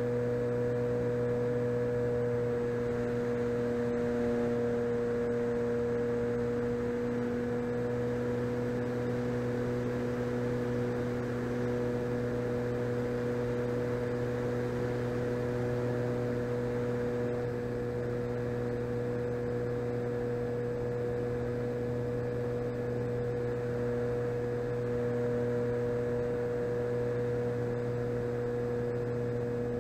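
Electric motor and propeller of an E-flite Cessna 150 RC plane running at steady cruise throttle: a constant droning whine that holds its pitch, easing slightly about seventeen seconds in.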